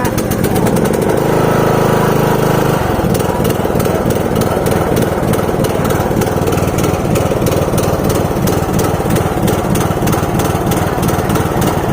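Troy-Bilt Pony riding lawn mower engine running. Its sound changes about three seconds in, then it runs on steadily with a fast, even pulsing.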